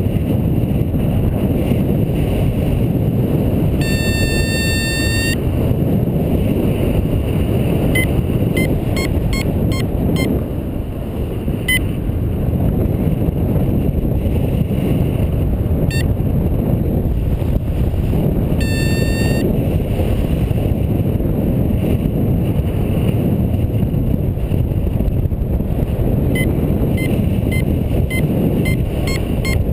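Wind rushing over the microphone of a paraglider in flight, a steady noise throughout. Over it, a flight variometer gives short high beeps in scattered runs, plus two longer beeping tones about 4 and 19 seconds in.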